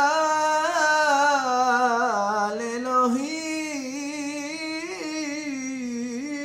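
A man's solo voice chanting Torah cantillation in the Constantine (Algerian Jewish) tradition, drawing one syllable out in a long, wavering melisma without a break. It is a little softer after about three seconds.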